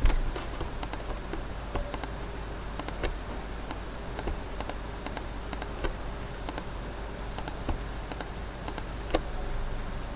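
Computer mouse clicking, several sharp single clicks a second or two apart, the loudest right at the start, over a steady low electrical hum.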